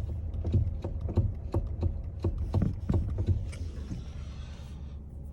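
Electric power steering column of a 2013 Kia Ceed knocking, a run of short knocks about two to three a second that fades out about four seconds in, over a low steady hum. The knock is typical of a broken rubber damper (spider coupling) inside the steering assist unit, which the mechanic takes to have fallen apart.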